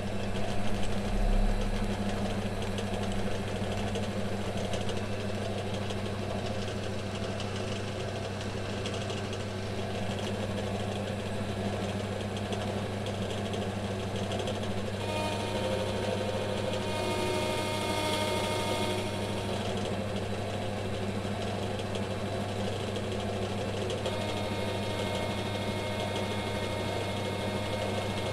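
A metal lathe runs steadily, spinning an electric motor armature for a light skim of its worn commutator. A steady motor hum is joined by a higher whine and hiss for a few seconds about halfway through, and faintly again near the end.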